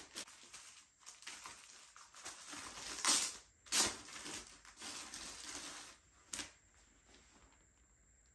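Rustling and crinkling of plastic and paper packaging as it is handled and unwrapped, in irregular bursts, the loudest two about three and four seconds in, dying down after about six seconds.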